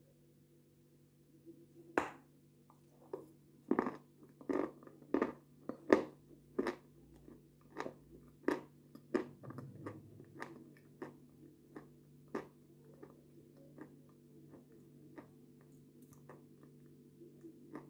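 Close-miked wet mouth sounds of someone eating a spoonful of strawberry yogurt: sharp lip and tongue smacks, about one or two a second, starting about two seconds in, loudest over the next few seconds and then fading. A low steady hum runs underneath.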